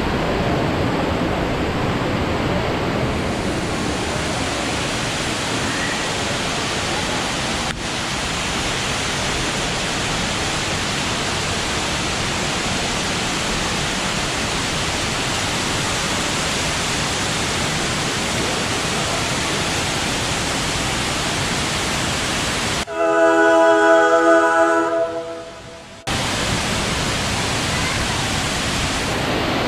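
Steady roar of Fukuroda Falls, the water crashing down without a break. About 23 seconds in, the roar gives way to a few seconds of ringing musical tones that fade out, and then the water noise returns suddenly.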